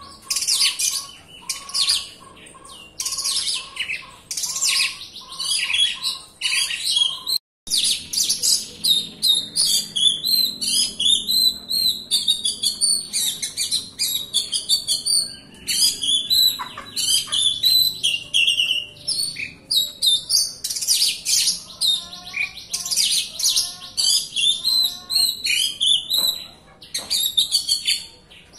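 Oriental magpie-robin (kacer) in full song, singing continuously in rapid, densely packed phrases of high whistles and chattering notes. There is one brief break about seven and a half seconds in.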